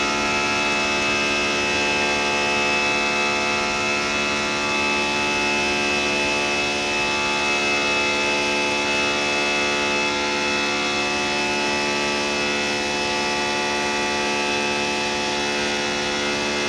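Airbus A320 engine drone heard inside the passenger cabin during the climb after takeoff: a steady, even drone made of many fixed tones over a rushing hiss, with no change in pitch or level.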